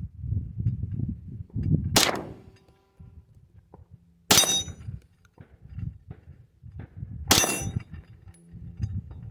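Three single handgun shots, spaced about two to three seconds apart, each with a short high ringing after the crack. Wind buffets the microphone as a low rumble, heaviest before the first shot.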